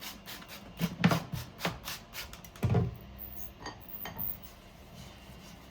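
Kitchen utensils knocking, clinking and scraping against dishes and a pan: a quick run of knocks over the first few seconds, then a few scattered clicks.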